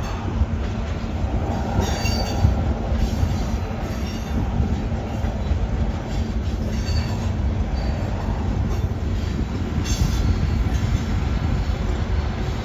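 Freight train of tank cars rolling past close by: a steady rumble and clatter of steel wheels on rail, with brief high-pitched wheel squeals every few seconds. A distributed-power locomotive's engine comes in near the end.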